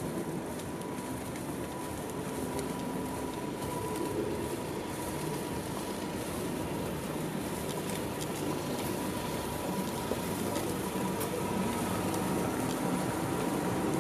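Street ambience: a steady wash of traffic noise from cars on the road alongside, with a thin steady whine underneath.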